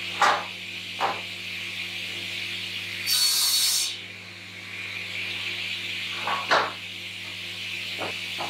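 Prima 2500 sliding panel saw running with a steady hum, its blade crosscutting a timber board in a short loud burst about three seconds in. Several wooden knocks as boards are shifted on the sliding table.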